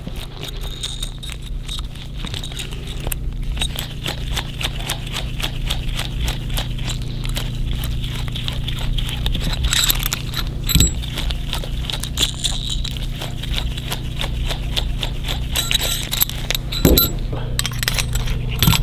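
S&S adjustable pushrods being handled and screwed down to their fully collapsed length by hand: a long run of light metallic clicks and scrapes, with a few louder knocks, over a steady low hum.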